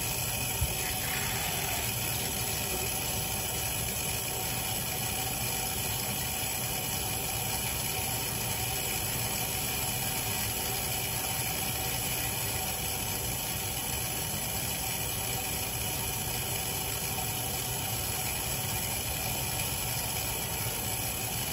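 Steady whirring hum of a bathroom exhaust fan running, even and unchanging, with one short click about half a second in.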